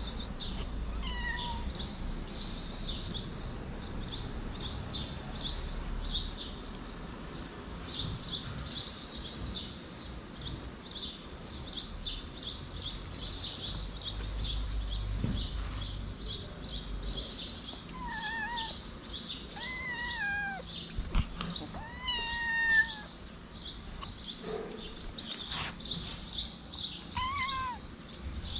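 A kitten meowing: short, high, arching meows, one at the start, a cluster of several about two-thirds through and one near the end. Birds chirp rapidly and continuously behind it.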